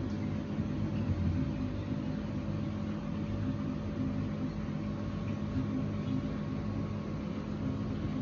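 Steady low electrical hum of an aquarium pump running, with a faint even hiss over it.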